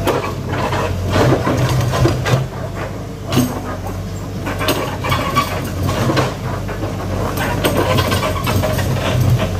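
Backhoe engine running steadily, with scattered knocks and clanks over it.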